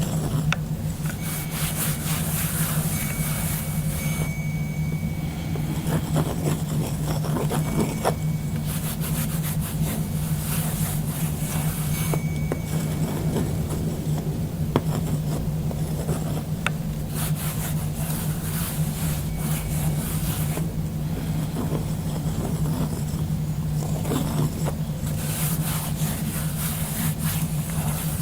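Slow paced breathing for box breathing: a long airy whoosh of breath about every eight seconds, four in all, with still pauses between, over a steady low hum.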